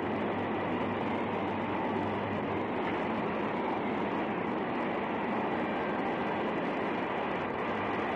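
Steam escaping under pressure from boiler pipes: a steady, unbroken hiss with a low hum beneath, as the boiler's pressure runs near the top of its gauge.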